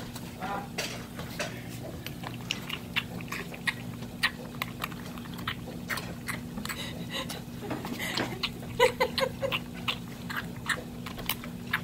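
A young raccoon slurping and lapping milk from a steel bowl with its nose buried in it, making rapid, irregular wet smacking and clicking sounds. About nine seconds in there is a quick run of short pitched gasps as it fights for breath: it is eating too fast and getting milk up its nose.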